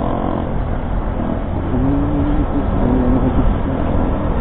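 Honda Click 125 scooter's single-cylinder engine running while riding, under a steady low rumble of road and wind noise. A wavering hum rises out of it for about a second and a half near the middle.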